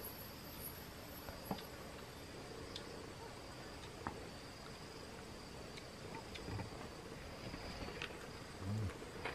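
Insects chirring steadily at a high pitch, with a second, higher insect tone that fades out about two seconds in. Scattered small clicks and soft smacks come from people eating with their hands.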